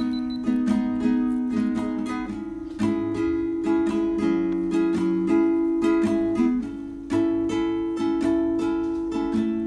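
Background music: an instrumental stretch of a song, with a strummed acoustic string instrument playing chords in a steady rhythm and no singing.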